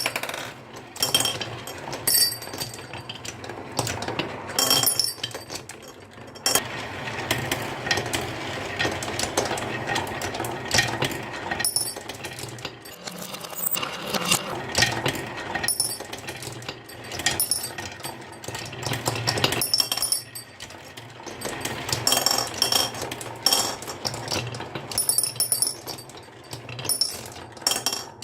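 Marbles rolling, clicking and clattering down a wooden marble run, with many quick knocks over a continuous rolling rattle.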